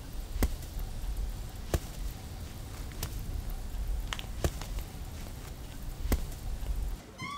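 A broom whacking rugs hung on a clothesline: five sharp whacks a little over a second apart, over a low steady rumble.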